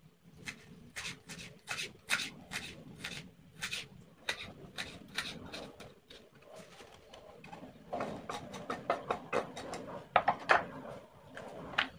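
Kitchen knife chopping ginger on a wooden cutting board: a run of sharp taps, two or three a second, coming quicker after about eight seconds.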